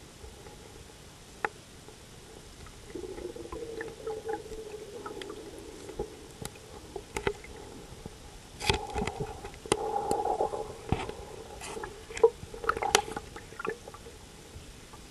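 Sound picked up underwater inside the LCTR-1 diving robot: its motors humming in spells from about three seconds in, over a low hiss, with scattered sharp clicks and knocks, the loudest about twelve seconds in.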